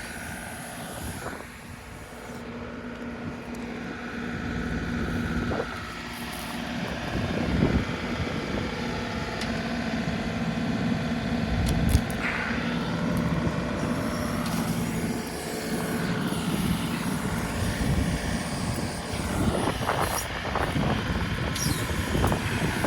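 John Deere 2038R compact tractor's diesel engine running steadily while working the backhoe. The engine gets louder a few seconds in, and there are a few short knocks from the digging.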